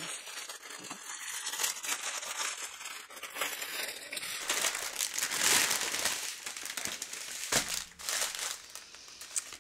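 Crinkling of plastic zip-lock bags as a large bag of small drill packets for diamond painting is opened and its bundle of little plastic bags is handled, an uneven run of crackles and rustles that is loudest a little past the middle.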